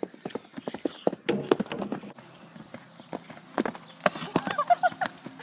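A horse's hooves thudding on grass turf as it canters toward and over small jumps, an irregular run of hoofbeats with louder clusters of thuds at take-off and landing.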